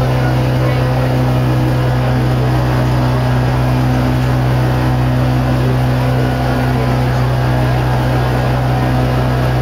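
A motorboat's engine droning at a steady pitch while under way, with water rushing and splashing along the hull.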